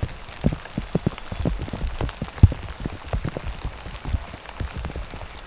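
Rain falling, with big drops tapping close by at an uneven pace; one tap about two and a half seconds in is the loudest.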